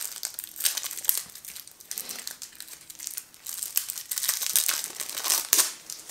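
Plastic shrink wrap being pulled and torn off a deck of game cards by hand: a run of irregular crinkles and crackles, loudest near the end.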